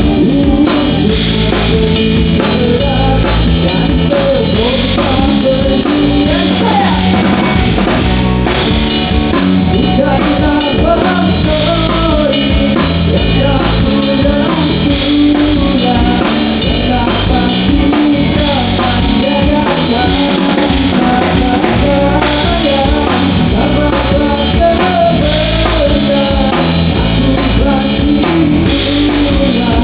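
Live band playing rock music on drum kit, electric guitar and bass, with a voice singing, loud and steady throughout.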